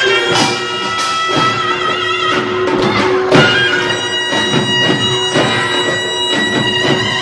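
Korean pungmul folk-band music: a reedy wind instrument, the taepyeongso shawm, plays long held notes over a fast run of drum and gong strikes.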